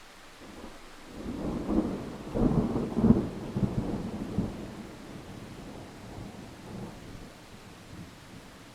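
A thunderclap over steady rain: the rumble builds about a second in, cracks loudest around three seconds in with several rolling peaks, then dies away over the next few seconds.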